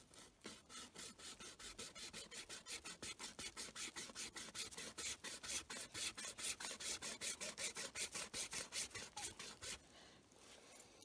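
Rapid, even rasping strokes against a thin wooden sapling stem, about five a second, stopping about a second before the end.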